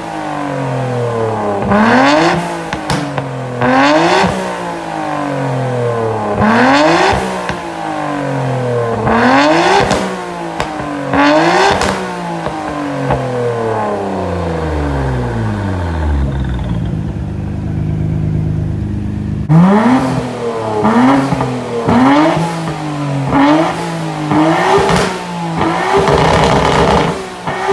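Nissan Skyline R34 GT-R V-Spec's RB26DETT twin-turbo straight-six revving through a Tomei titanium straight-pipe exhaust. Sharp throttle blips rise quickly and fall back, about one every two seconds. About halfway through the engine drops back to idle for a few seconds, then gives a quicker run of blips and a short held rev near the end.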